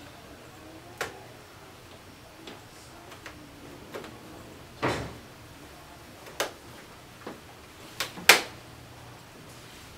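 Irregular small clicks and knocks of a Dell Latitude E5480 laptop's case being handled and unscrewed with a screwdriver during disassembly, the loudest a sharp double knock about eight seconds in.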